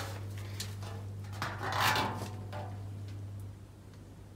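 Steel front wing of a VW T4 Transporter being turned over by hand on wooden pallets: a few light knocks, then a scraping rustle about two seconds in, over a steady low hum.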